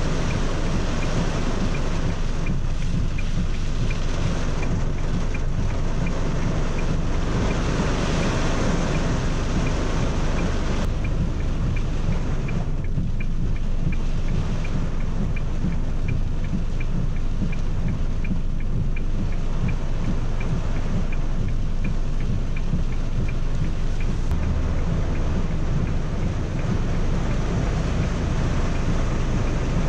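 Heavy rain falling steadily on a car, heard from inside the cabin as an even, dense rain noise.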